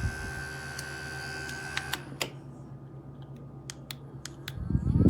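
A small handheld USB fan runs with a steady hum and a high whine, then cuts off about two seconds in. Several sharp clicks follow. Near the end another handheld fan spins up, its whine rising and a loud rush of air building quickly.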